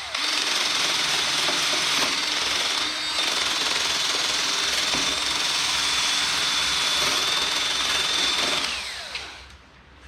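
Angle grinder with a wire wheel running against the fresh welds, a steady high motor whine over harsh brushing noise, with short lifts off the metal near the start and about three seconds in. Near the end it is released and winds down, its whine falling in pitch.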